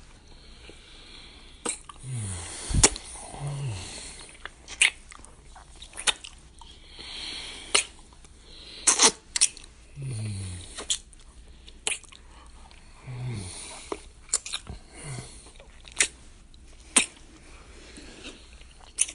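Wet kissing: sharp lip smacks every second or two, with breathy sounds and short low murmurs that fall in pitch between them.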